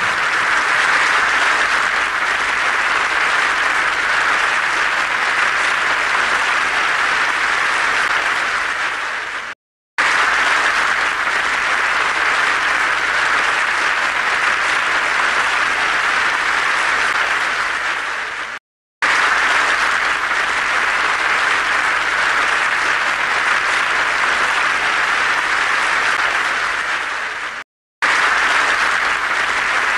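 An audience applauding steadily. The applause fades and cuts to a moment of silence three times, about every nine seconds, then starts again.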